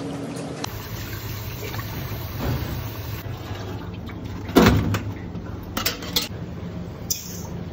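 Gutted fish tipped from a steel strainer into a stainless-steel tray: one loud wet slap and clatter about halfway through, then a couple of light metal clanks, over a steady low hum.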